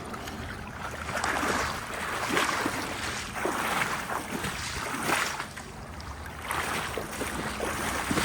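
Shallow river water splashing and sloshing in a series of short, irregular surges, about one a second, over a steady low rumble of flowing water.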